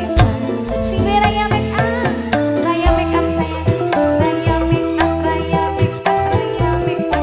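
Dangdut band music in an instrumental passage: sustained melody notes with bass, and a steady beat of percussion with a shaker or rattle.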